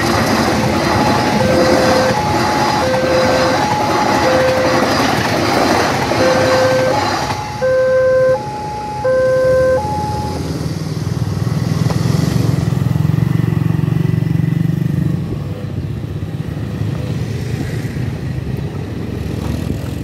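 Level-crossing electronic warning siren sounding a repeating two-tone pattern, a high note then a low note about every 0.7 s, over the rolling noise of a passing passenger train. The train noise ends abruptly about seven seconds in, and the siren stops about ten seconds in as the barrier goes up. Motorcycle engines follow as traffic moves off.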